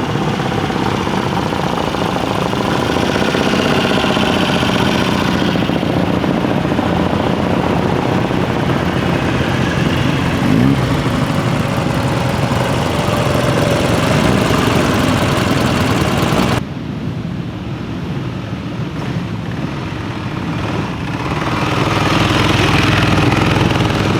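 Classic racing sidecar outfits' motorcycle engines running hard at speed. About two-thirds of the way in the sound drops suddenly to a duller engine note, which then builds again near the end as machines come closer.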